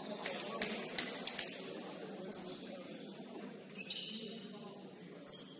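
Sneakers squeaking on a basketball court several times, with a few sharp knocks of a basketball bouncing in the first second and a half.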